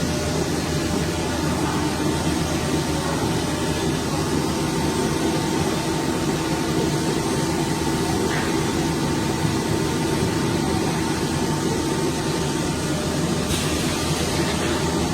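Steady hum and noise of running machinery, with constant drone tones and no breaks. A higher hiss comes in near the end.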